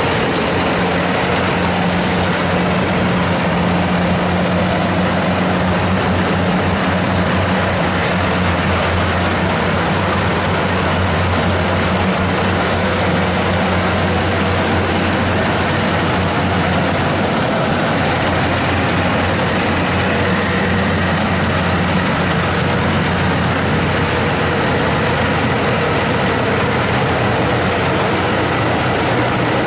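Rice combine harvester running steadily: a constant low engine hum under a loud, even mechanical noise.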